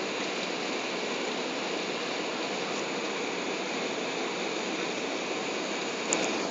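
Cabin noise inside an Airbus A380 in flight: a steady rush of airflow and engine noise, with one short click near the end.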